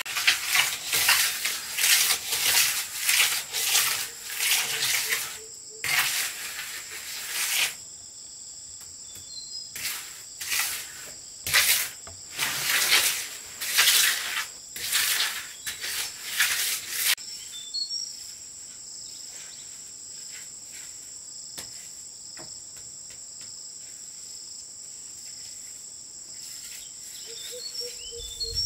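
Insects droning steadily at one high pitch, with a few short bird chirps. Through the first half or more, a run of loud rough strokes, about one or two a second, covers them and then stops.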